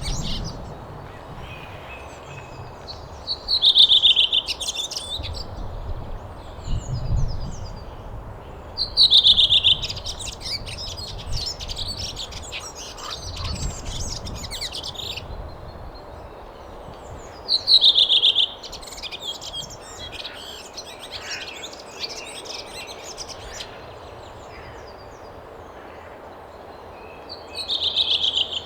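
Birds calling in loud, repeated bursts a few seconds to several seconds apart, each opening with a strong call followed by rapid chattering notes.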